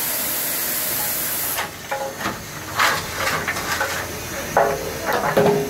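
A steam locomotive letting off steam in a steady hiss that cuts off suddenly about one and a half seconds in, followed by voices and a few clanks.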